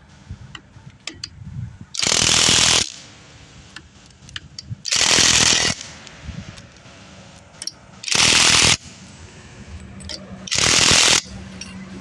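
Impact wrench running lug nuts onto a wheel in four short bursts, each under a second and about three seconds apart.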